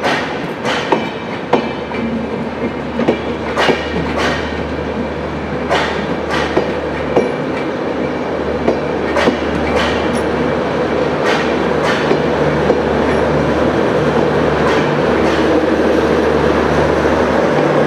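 Bangladesh Railway intercity passenger coaches rolling past at low speed, their wheels clacking unevenly over rail joints above a steady rumble. The clacks come thick at first and thin out later, while the rumble grows slowly louder.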